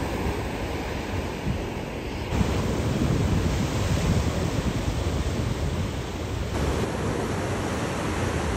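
Sea surf breaking and washing onto a sandy beach, with wind buffeting the microphone. The sound gets louder abruptly about two seconds in.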